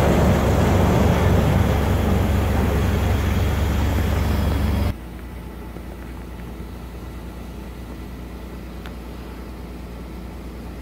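A forklift engine runs loudly with a deep rumble while whole grape clusters are tipped into a wine press. It cuts off suddenly about five seconds in, giving way to the steady low hum of a must pump drawing Pinot Noir must through a hose.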